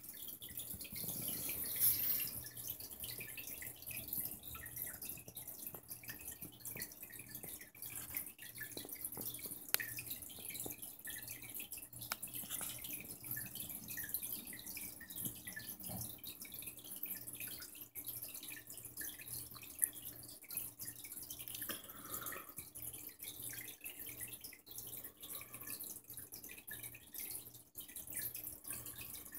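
Faint aquarium water trickling and dripping, with many small splashes, over a steady low hum.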